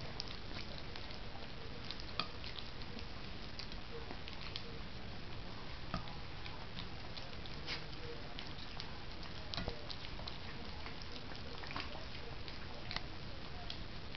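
Two three-week-old puppies lapping and smacking at wet puppy mush on a plate: a run of irregular, wet clicks and slurps over a steady background hiss.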